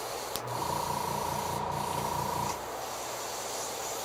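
Airbrush hissing as it sprays paint. From about half a second in, a steady whine and a rapid low pulsing hum join it for about two seconds, then stop.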